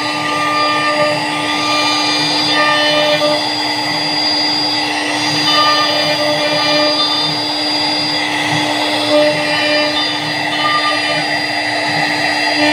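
CNC router spindle running with a steady high whine while it carves a design into a wooden door.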